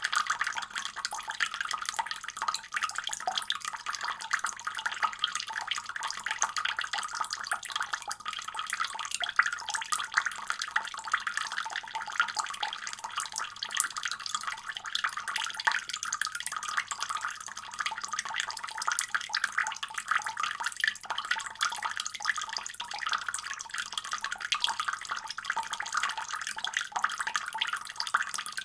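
Tap water running steadily from a faucet, a continuous splashing hiss.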